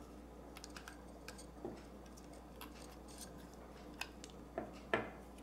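Small parts of a GAUI 200 RC helicopter's main gear and shaft being handled and fitted by hand: scattered light clicks and taps, with the loudest knock about five seconds in.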